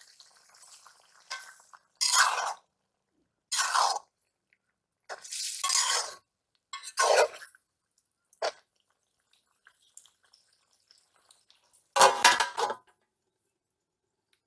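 A metal spatula scrapes and stirs bitter gourd in a metal wok in several separate strokes. Near the end comes one louder metallic clatter as a metal lid is set on the wok.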